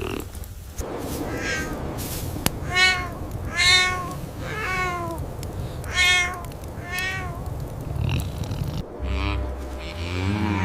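A cat meowing: about five short meows, each rising and falling in pitch, spaced about a second apart. Near the end a lower, longer call begins under a steady low background rumble.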